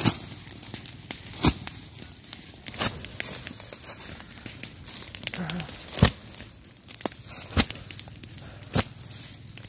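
Dry leaf litter and twigs crackling, broken by about half a dozen loud, sharp snaps at uneven intervals.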